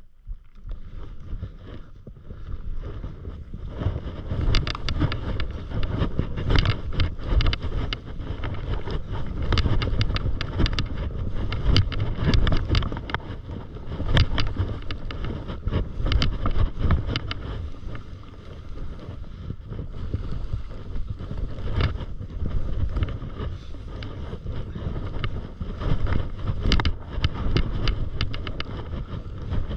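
Skis hissing and scraping through soft, tracked-out powder snow on a downhill run, with wind rushing over the microphone. The noise swells and eases every couple of seconds, with sharp scrapes and chatter as the skis hit bumps.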